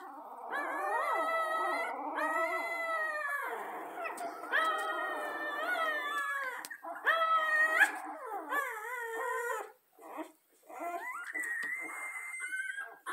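A litter of young puppies squealing and whining in discontent, several voices overlapping in long, wavering, high cries, with a short break about ten seconds in.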